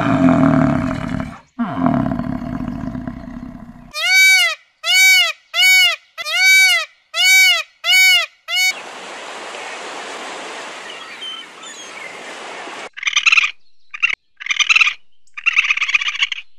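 A bison grunting low for the first few seconds. Then comes a run of about seven loud, evenly spaced honking calls from Indian peafowl, followed by a few seconds of rustling outdoor noise with faint bird chirps. Near the end there are short, choppy bursts of raccoon chittering.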